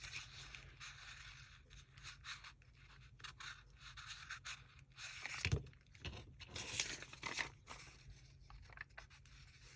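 Paper pages and cut paper pieces being handled: faint, scattered rustling and sliding scrapes, with a few louder rustles around the middle.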